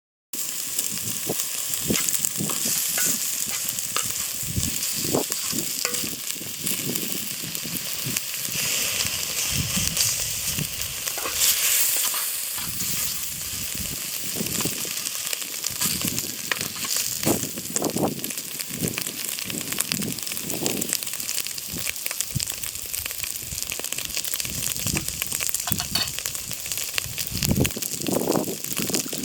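Food frying in a pan or pot, a steady sizzle full of small crackles, with irregular knocks from stirring.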